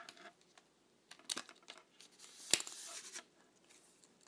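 Handling clicks and a rustling scrape from the telescoping arms of a backpack camera rig being pulled out: a few light clicks, then a sharper click about two and a half seconds in, with a scraping rustle around it.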